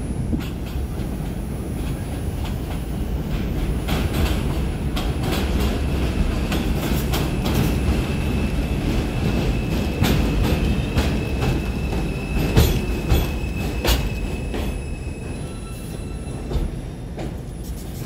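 R142 subway train pulling into the station and slowing to a stop: heavy rumble of wheels on the rails with repeated sharp clicks, and a high steady squeal through the middle. The sound is loudest about two-thirds of the way in, then eases as the train comes to a halt.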